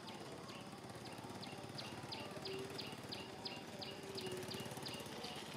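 Rapid, evenly repeated high chirps from a small animal, about three a second, each a short downward flick in pitch, going on steadily.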